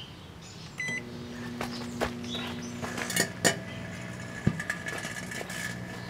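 Hamilton Beach 700-watt microwave oven started with a short keypad beep about a second in, then running with a steady hum. Over the hum come irregular sharp crackles and a few louder pops from the giant Bic butane lighter sparking inside, which is alight in the oven by the end.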